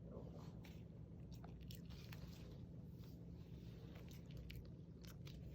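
Near silence: a faint steady low hum with scattered soft clicks.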